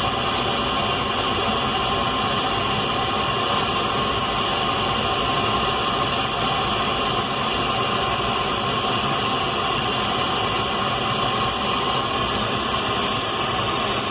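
Radio static: a steady, unbroken hiss with no knocks or breaks.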